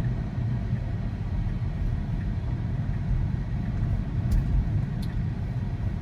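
Steady low road and tyre rumble inside the cabin of a moving Tesla Model 3, with no engine note.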